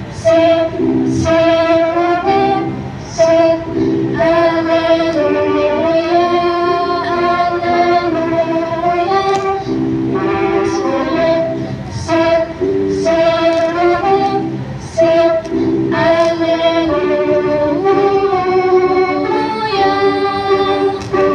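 A girl singing a solo hymn into a microphone, amplified over loudspeakers, in long held notes that move from one pitch to the next.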